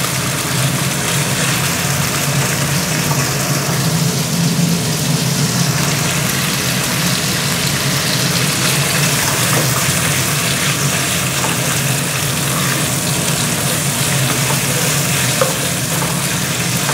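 Sliced bacon sizzling in hot oil in a non-stick pan, moved about with a wooden spatula, over the steady hum of a kitchen range hood fan.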